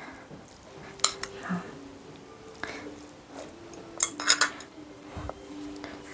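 Chopsticks clicking and scraping against a bowl of noodles while eating, in scattered clicks with a quick cluster about four seconds in.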